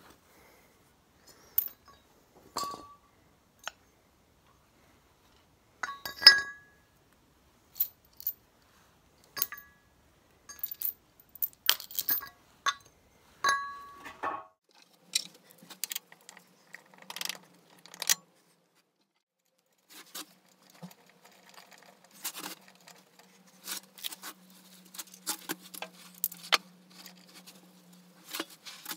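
Metal tools and parts clinking and clicking at irregular intervals, some strikes ringing briefly, with a faint low steady hum through the second half.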